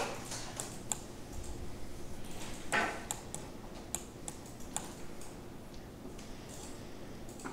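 Scattered clicks of a computer mouse and keyboard, with a louder rustling knock just under three seconds in, over a steady low hum.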